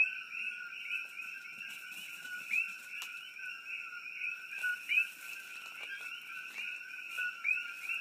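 A chorus of many coqui frogs calling, their short two-note 'co-qui' calls overlapping in a steady, unbroken stream.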